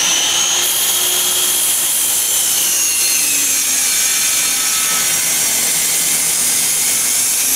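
DeWalt compound miter saw running at full speed and cutting through a thick wooden board on an angled cut. Its motor whine sags slightly in pitch about three seconds in as the blade bites into the wood.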